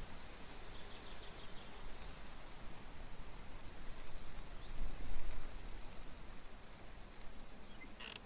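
Faint outdoor background noise with a low rumble and scattered small bird chirps.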